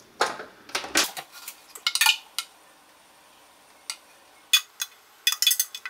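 A metal spoon knocking and scraping against a plastic blender jar and a glass bowl as shredded chicken is emptied out: a series of sharp clinks and knocks in clusters, thickest near the end.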